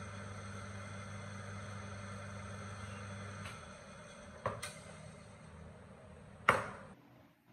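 Restored single-phase electric motor running with its fan turning: a steady low hum with a higher whine. The hum cuts off about three and a half seconds in as the power is disconnected, and the motor coasts down. A couple of clicks and a louder knock follow near the end as the plug and cord are handled.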